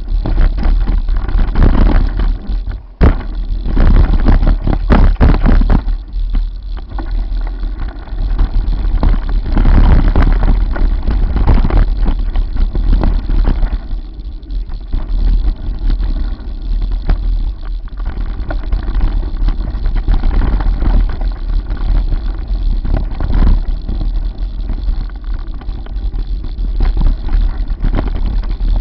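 Mountain bike ridden fast down a rough dirt singletrack, heard from a camera on the bike or rider: steady wind rumble on the microphone with tyre noise and many knocks and rattles over the bumps. It is roughest in the first dozen seconds and settles somewhat after about fourteen seconds.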